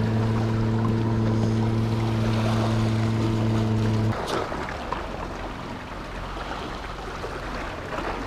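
A steady low motor drone holding one pitch, which cuts off abruptly about four seconds in. After it, small waves wash against the shore rocks.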